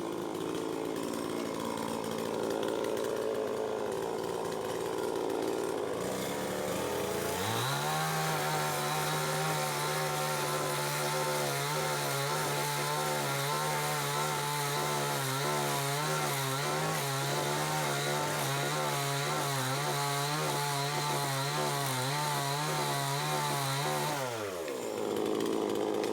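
Two-stroke chainsaw revving up to full throttle about seven seconds in and holding a steady high note for around seventeen seconds while it cuts a dead tree's wood lengthwise through the middle. The engine note then falls away as the throttle is released near the end.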